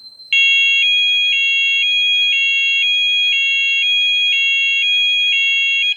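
Speaking fire alarm sounder giving its electronic alarm tone: a faint steady high tone, then a loud two-tone warble switching between two high pitches about twice a second, which stops just before the end.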